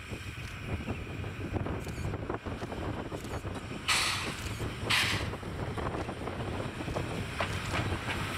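A 750 mm narrow-gauge steam locomotive coming on with a train, a steady low rumble of the engine and coaches, with two loud hissing bursts of steam about four and five seconds in.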